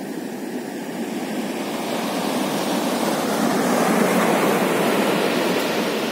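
Ocean surf on a sandy beach: a wave breaks and its foaming wash rushes up the sand, the sound swelling to its loudest about four seconds in and then easing.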